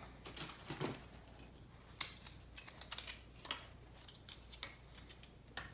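Scattered light clicks and taps of craft supplies being handled on a worktable, with one sharper click about two seconds in.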